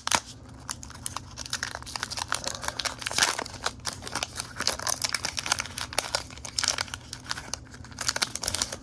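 Foil wrapper of a Pokémon booster pack being torn open: a sharp rip right at the start, then dense crinkling and crackling as the wrapper is pulled apart and the cards are slid out.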